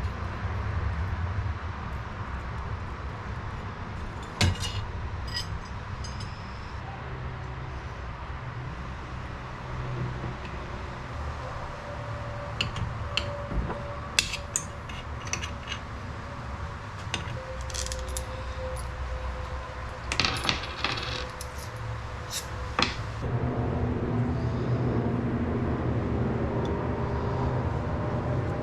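Small metal parts and tools clinking and tapping during hand work on a metal bracket: scattered sharp clicks, some with a brief metallic ring, in clusters, over a steady low hum that gets louder near the end.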